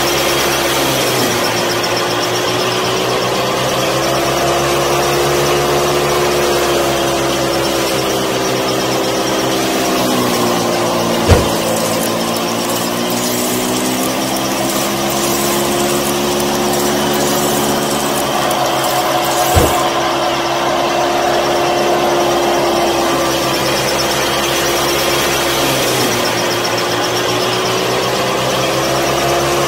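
Small electric motor of a miniature wheat thresher running steadily with a pitched hum, its pitch dipping and recovering several times. Two sharp clicks, about eleven and twenty seconds in.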